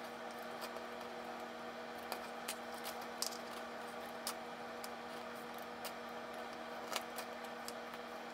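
Scissors snipping through stiffened, baked grosgrain ribbon curls: short sharp clicks at irregular intervals, over a steady low electrical hum.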